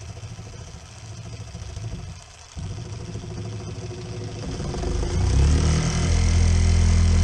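Makita one-handed reciprocating saw running as its blade saws into a lead egg sinker clamped in a vise, splitting the sinker to take a hook. It falters briefly about two and a half seconds in, then runs louder from about five seconds in.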